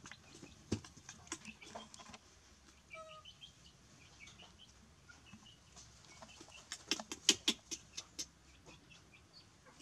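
Faint short animal chirps and clucks, with scattered light ticks and a quick run of sharp taps and clicks about seven seconds in.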